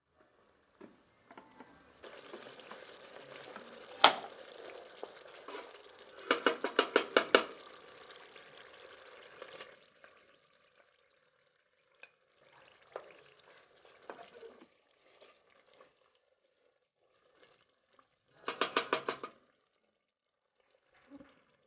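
Wooden spoon stirring in an aluminium pot of simmering stew, over a sizzling hiss in the first half. There is one sharp knock about four seconds in, and two bursts of quick tapping: one about a third of the way through and one near the end.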